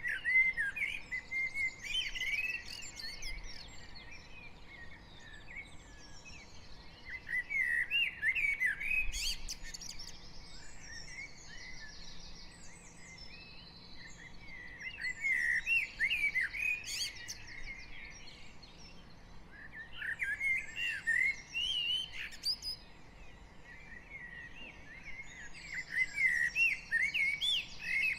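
Dawn chorus of garden birds: one bird sings loud warbling phrases of two to three seconds, about every five to six seconds, while other birds twitter fainter and higher in the gaps.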